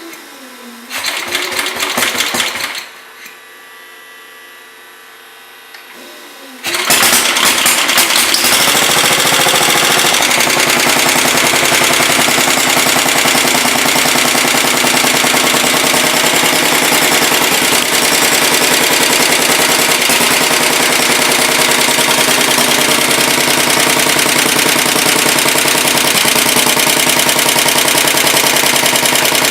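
1967 Sears Suburban 10 garden tractor's engine cranked by its starter for about two seconds without catching. Then, about seven seconds in, it fires and runs steadily with an even rapid beat: its first start after repairs.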